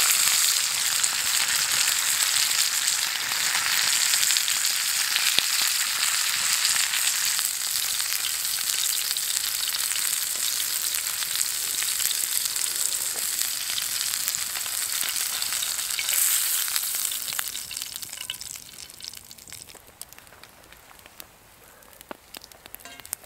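Steak sizzling loudly in a skillet over a campfire, a steady hissing fry. About three-quarters of the way through it dies down to a much quieter sizzle with scattered pops and crackles.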